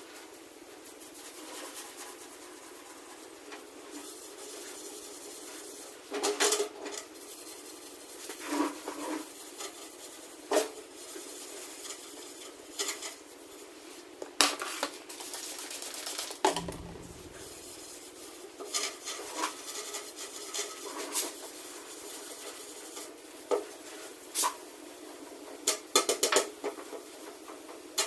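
Metal parts of a steel toolbox being handled and cleaned: irregular clinks and sharp knocks with stretches of rubbing and scraping.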